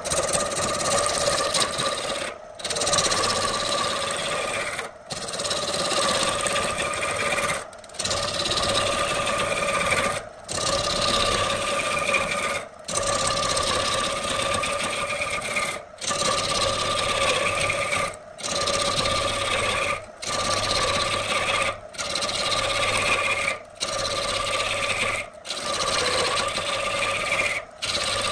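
Wood lathe spinning a laminated redwood blank while a long-handled turning tool cuts into it: a steady hum with a rasping cut whose higher pitch falls over each pass. Short gaps break the sound about every two to three seconds.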